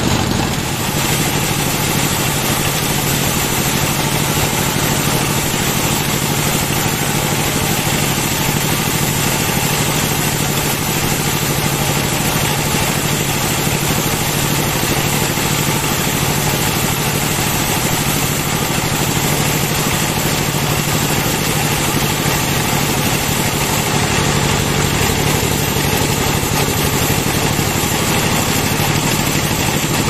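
Band sawmill running steadily, its blade cutting lengthwise through a log, with the engine-like drone of its drive.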